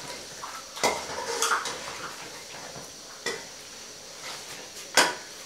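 Metal skimmer knocking and scraping against a metal pan while stirring meat frying in oil, with about four sharp clinks, the loudest near the end, over a faint steady sizzle.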